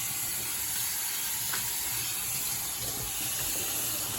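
Water running steadily from a kitchen tap into a sink, an even hiss.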